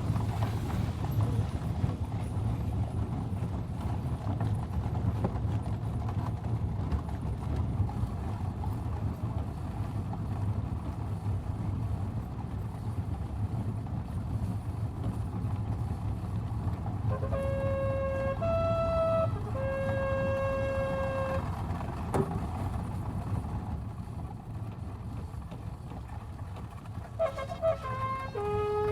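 Four-horse stagecoach on the move: a steady rumble of wheels and hooves. A horn is blown in two short calls of a few held notes stepping between pitches, about two-thirds of the way through and again near the end.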